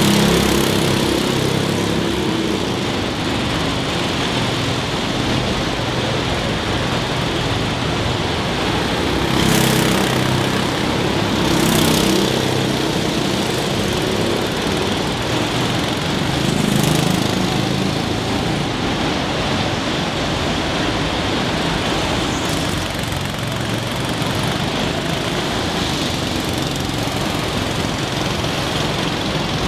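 Go-kart engines running as karts lap the track, with three karts passing close by, at about ten, twelve and seventeen seconds in.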